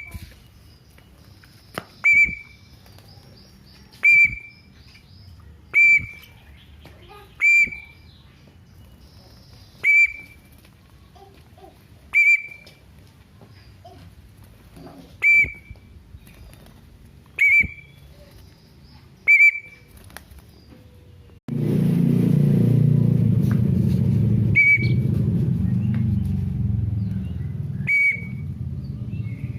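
Short, sharp whistled chirps at one high pitch, one about every two seconds, each cut off quickly. About two-thirds of the way in, a loud steady low rumble starts up, and two more chirps sound over it.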